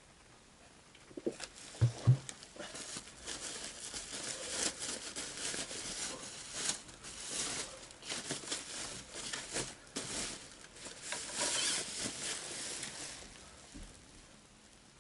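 Thin white plastic bag rustling and crinkling as a guitar is pulled out of it, after a couple of dull knocks about two seconds in. The crinkling fades out near the end.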